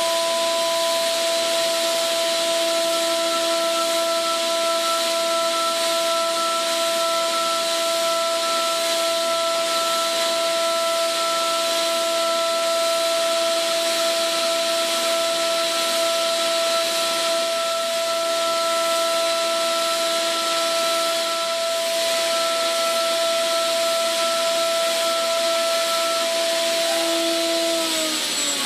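CNC machining spindle turning an OSG WXL-LN-EBD long-neck ball end mill at 20,000 rpm while it mills NAK80 mould steel, giving a steady whine whose tones sit in step with the spindle speed. A constant hiss of the coolant jet runs under it.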